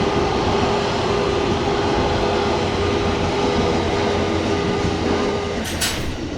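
Train passing close by: a steady rumble of wheels on rails with a steady hum. The hum fades out about five and a half seconds in, and a few sharp clacks follow near the end.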